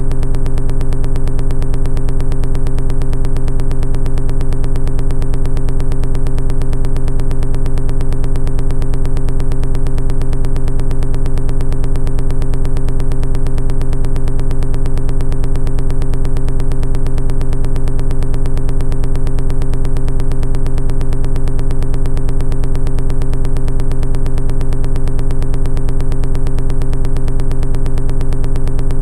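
A loud, steady buzzing drone with a rapid, even flutter, unchanging throughout.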